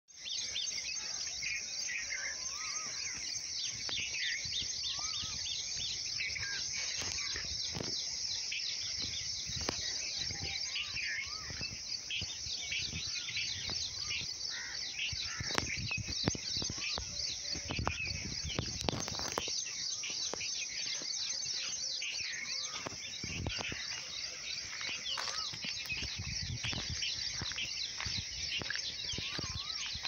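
Dawn chorus: many birds chirping and whistling at once in a dense, unbroken tangle of short calls. Scattered low bumps and rumbles come and go beneath it, most around the middle.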